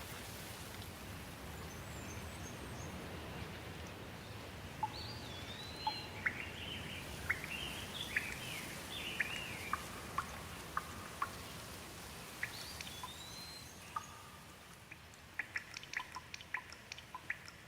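Steady rain hiss with birds calling through it, in short rising and falling chirps through the middle. Near the end the rain eases off into a scatter of separate sharp drips.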